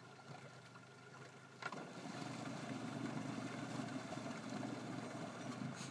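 Motorboat engine heard across the water: it comes up suddenly about a second and a half in and then runs steadily, churning white water at the stern.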